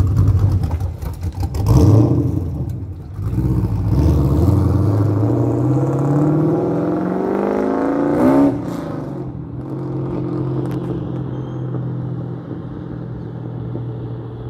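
Holden VY Commodore SS ute's LS V8 through a centre-exit exhaust: a sharp rev about two seconds in, then the ute pulls away and accelerates, its pitch rising steadily for about four seconds before dropping sharply. The engine note then carries on steadier and fainter as the ute drives off.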